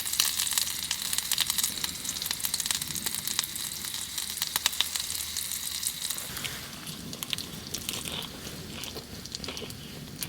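Food sizzling and crackling as it fries in a pan; the sizzle thins out about six seconds in.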